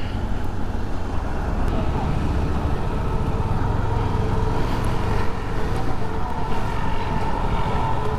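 Vehicle engine running steadily with road and traffic noise while moving along a road.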